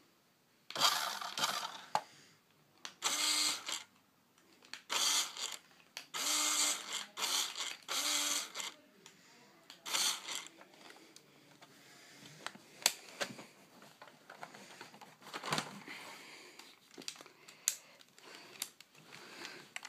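Toy remote-control car's small electric motor and gears whirring in short bursts of one to two seconds, several times in a row. Later come scattered light clicks and rattles.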